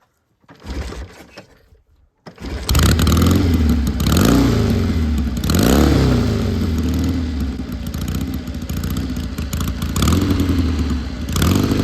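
1957 Triumph Desert Sled's parallel-twin engine comes in loudly about two seconds in, after a brief quieter sound, and runs with its pitch rising and falling as it is revved up and down.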